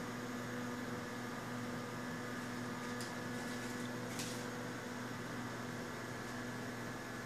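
Steady electrical hum over a faint hiss, with two faint short crackles about three and four seconds in: the chip bag rustling as the cat noses inside it.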